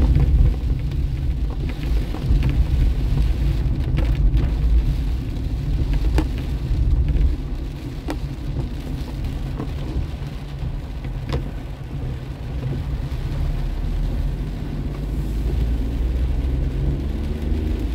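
Inside a car driving in rain: a steady low rumble of the car and its tyres on the wet road, with rain on the body and windscreen and scattered light ticks.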